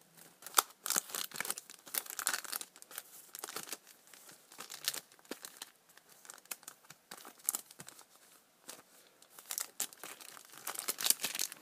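Foil Pokémon card booster packs crinkling and rustling in irregular crackles as they are shuffled and moved around by hand.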